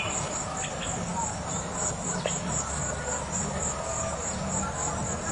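Insects trilling in a steady, high, pulsing chirr, with a few faint bird chirps and a low background wash.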